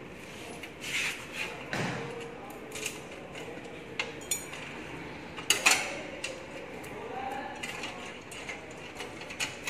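Scattered metallic clinks, taps and knocks of steel mudguards, nuts and bolts being handled and fitted by hand on a power tiller, with the loudest clank about five and a half seconds in.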